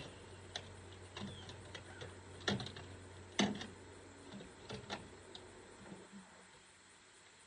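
Irregular light clicks and knocks, with two louder knocks about two and a half and three and a half seconds in, over a faint low hum that dies away midway.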